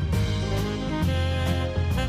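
Instrumental jazz background music: a saxophone-led tune over a bass line and drums.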